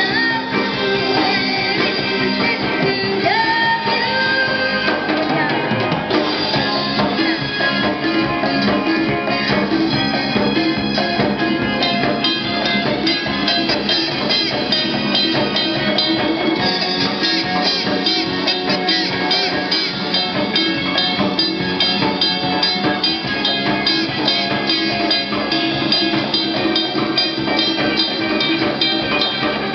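Live band playing western pop-rock on a drum kit and electric guitars, with a steady beat.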